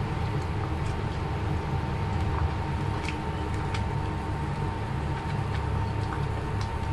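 Steady low machine hum with a thin steady tone above it, and a few faint clicks of a spatula stirring rice porridge with vegetables in a pot.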